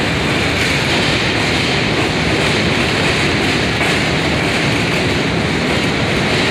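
New York City Subway R160 train cars running past along the platform: a steady, loud noise of steel wheels on the rails and the running gear, with no let-up.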